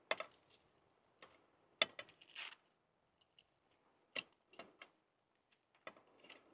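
A handful of scattered light clicks and clinks of metal tongs against a small portable grill as bratwursts are turned.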